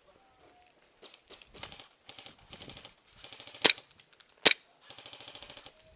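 Airsoft guns firing: several bursts of rapid clicking shots, with two louder single sharp cracks about three and a half and four and a half seconds in.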